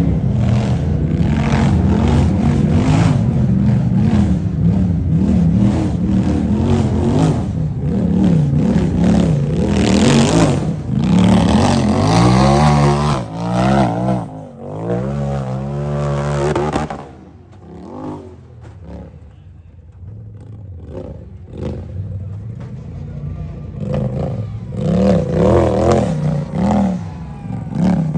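UTV engine revving hard on and off the throttle, its pitch rising and falling over and over. It drops quieter about two-thirds of the way through, then revs up again near the end.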